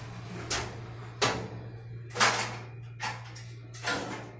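Five short hissing strokes, about one every second, from cleaning tiled kitchen wall tiles with alcohol, over a steady low hum.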